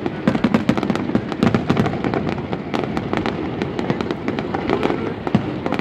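Fireworks display: a rapid, irregular string of bangs and crackles from shells bursting, many a second, over a constant background noise.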